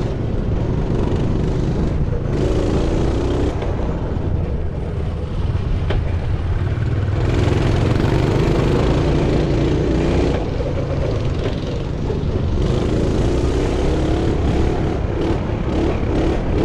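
Pit bike engine running under a rider, revving up and easing off several times as it accelerates along a dirt track.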